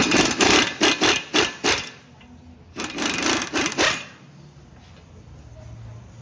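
Rapid, sharp metallic knocking and clattering from tool work on a pickup's front suspension, in two quick spells of several strokes each about two seconds in total, then a pause.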